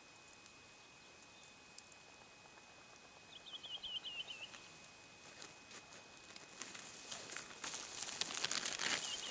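A plastic bag crinkling and rustling as it is handled, starting faintly about six seconds in and growing louder toward the end. A short high chirping trill comes a few seconds in.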